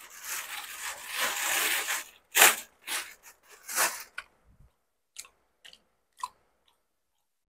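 Close-miked ASMR eating sounds of a man chewing bánh ít lá gai, a soft glutinous-rice cake. A dense stretch of noise lasts about two seconds, three louder chews follow, then a few faint clicks.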